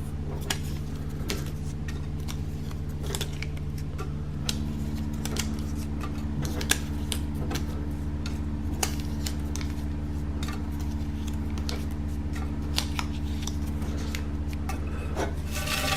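Paper raffle tickets being handled and dropped into a metal can: many light, irregular clicks and taps, over a steady low hum.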